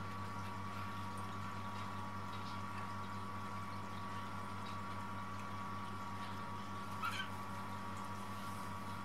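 Munchkin mother cat licking her newborn kittens: faint wet licking sounds over a steady low hum, with one brief high squeak from a newborn kitten about seven seconds in.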